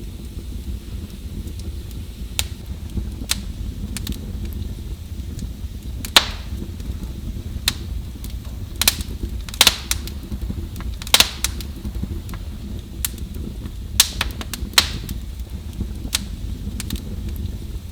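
Wood fire crackling and popping: sharp irregular pops, some loud, over a steady low rumble of burning logs.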